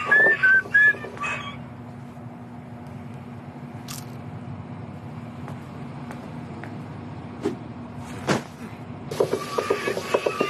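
Commercial soundtrack: a whistled melody over a beat breaks off after about a second and a half, leaving a low steady hum with a few scattered clicks. The beat-driven music comes back about nine seconds in.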